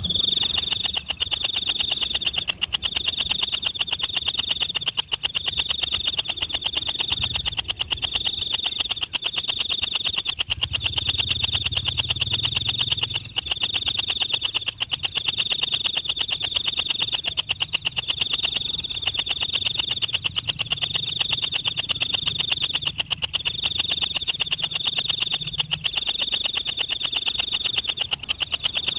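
Forest insect calling: a loud, high-pitched, very rapid pulsing trill in phrases of about a second, repeated over and over with short gaps.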